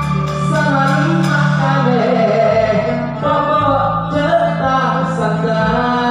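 Modern gambus band playing live, with a man singing the melody into a microphone over long held bass notes.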